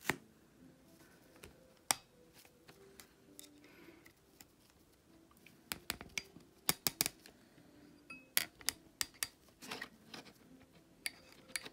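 Small sharp metallic clicks and taps of an Allen key and screws against an air pistol's metal frame as its screws are worked loose. A few isolated clicks come first, then a quick run of them about six to ten seconds in.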